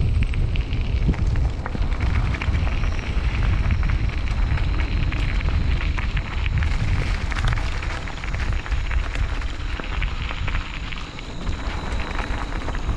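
Mountain bike riding on a dirt trail: wind buffeting the microphone with a steady low rumble, over scattered ticks and rattles from the bike on rough ground.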